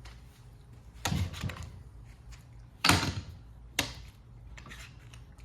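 A few sharp knocks and clacks of hand-held tools being handled against wood, spaced out: one about a second in, the loudest about three seconds in, and a smaller one just after.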